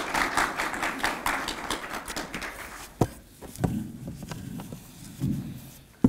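Microphone handling noise as the microphone is wiped down with a disinfectant wipe: a dense rubbing patter for about the first three seconds, then a few sharp knocks and dull rumbles.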